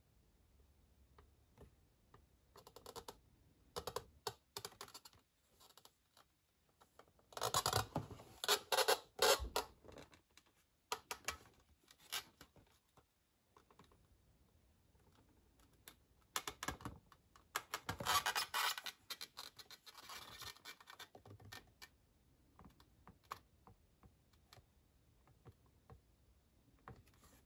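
Hands handling and turning a glossy cardboard gift box, fingers rubbing and scratching across its surface with scattered light taps; two longer stretches of rubbing, about a third of the way in and again past the middle.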